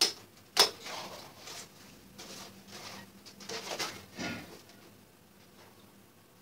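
Hands handling a rolled paper sheet while pinning it: two sharp clicks at the start, then a few softer rustles and taps that stop about two-thirds of the way through.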